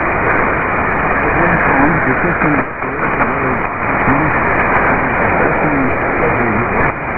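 Weak shortwave AM broadcast of Radio ELWA on 4760 kHz, a faint voice barely audible under loud, steady hiss and static. The sound is muffled and narrow, typical of a distant station received through a narrow receiver filter.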